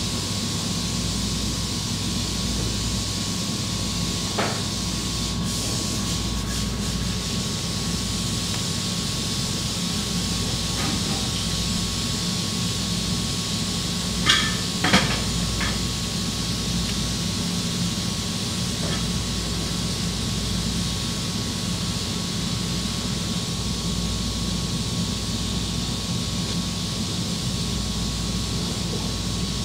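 Steady hiss and rumble of a street-food kitchen, with a few sharp knocks: one about four seconds in and two louder ones near the middle.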